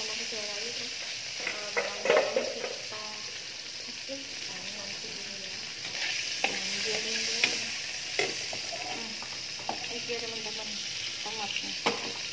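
Tomato halves sizzling in hot oil in a wok, with a steady hiss. A metal slotted spatula clinks and scrapes against the pan every so often as they are turned.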